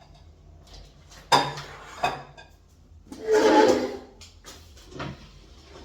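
Shopping items being handled and set down on a hard surface: a sharp knock, a smaller knock, then a longer, louder handling noise lasting under a second, and a last light knock.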